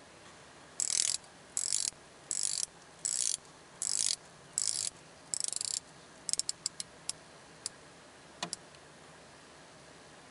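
Doxa SUB 1000T Professional's unidirectional diving bezel being turned by hand, its ratchet clicking. There are seven quick runs of clicks about three quarters of a second apart, then a few single clicks and one last click about two seconds later.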